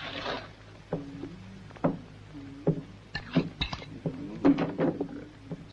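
A spoon clinking and scraping against a plate as beans are eaten quickly: about eight sharp, separate clinks, over a low steady hum.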